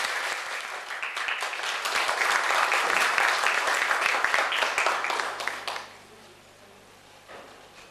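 Audience applauding, a dense patter of many hands clapping that fades away about six seconds in.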